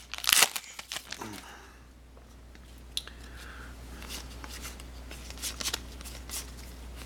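Foil trading-card pack crinkling and tearing as it is opened, then cards being handled in short, scattered rustles, with a single click about three seconds in.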